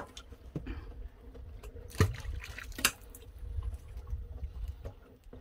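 Water trickling and dripping over a low steady rumble, with two sharp knocks about two and three seconds in.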